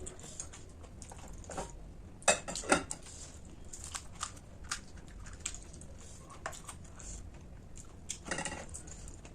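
Close-up eating sounds: a string of sharp crunches and clicks from crisp snack food being bitten and chewed, the two loudest about two and a half seconds in, with a short rustling crunch near the end.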